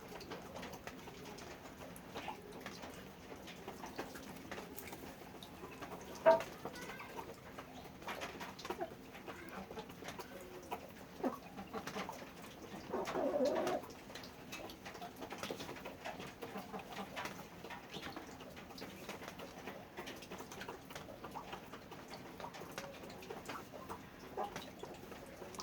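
Pigeons cooing, one low coo lasting about a second near the middle, over scattered small clicks and rustles, with one sharp knock about six seconds in.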